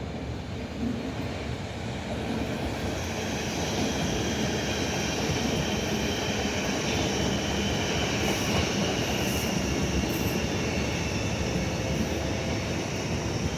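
A train running through the station. Steady rail rumble grows louder over the first few seconds, and a high, steady wheel squeal is heard above it.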